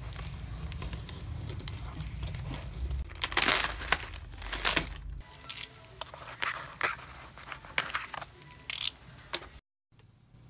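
Cardboard parcel being opened: packing tape slit and torn and the box handled, crinkling and tearing in bursts, loudest about three to five seconds in, then shorter scattered rustles. A low steady hum lies under the first half and stops about halfway.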